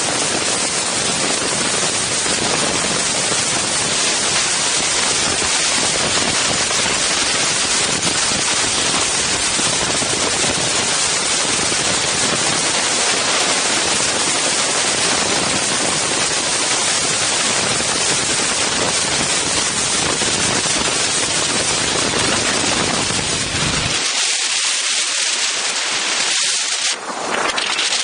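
Strong wind blowing across the microphones of an Insta360 One X camera, a loud, steady rushing noise. About 24 s in the low rumble drops out, leaving a thinner hiss.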